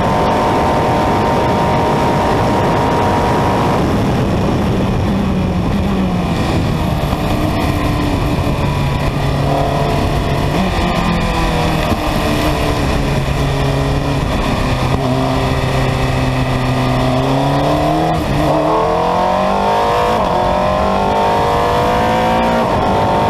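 Formula Renault 2000 single-seater's two-litre four-cylinder engine from the cockpit, over a steady rush of wind. It holds high revs at first, drops and runs lower with the pitch falling through the middle, then revs up again near the end, climbing in steps through the gears under acceleration.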